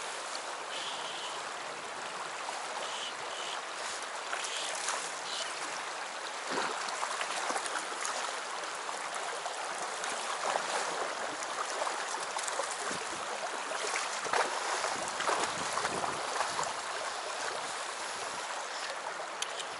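Shallow, fast-flowing rocky river running, a steady rush of water with a few brief sharper splashes.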